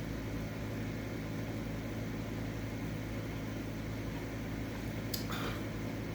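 Air-conditioning fan running with a steady hum, with a brief click about five seconds in.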